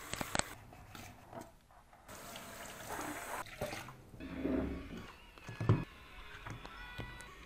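Tap water running and splashing over dishes in a stainless-steel sink with a few clinks, then water splashing over hands under a tap, and a single sharp knock about three quarters of the way through.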